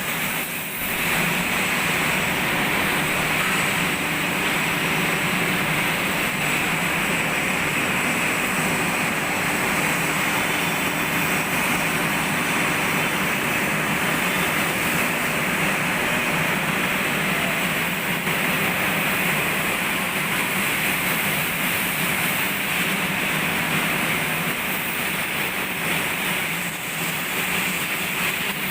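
Steady mechanical din of shipyard workshop machinery running without pause, easing briefly near the end.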